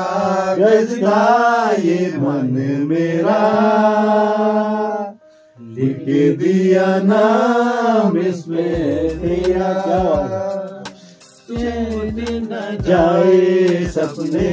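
Men singing a slow song together without instruments, drawing out long held notes in phrases, with short pauses between the phrases.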